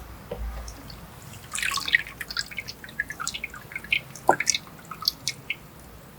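Liquid dripping and splattering in irregular small drops, a quick cluster about a second and a half in and scattered single drips after, with one duller plop around four seconds in.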